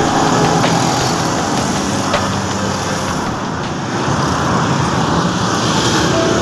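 Steady noise of a road vehicle on the move: engine and tyre noise with no clear breaks.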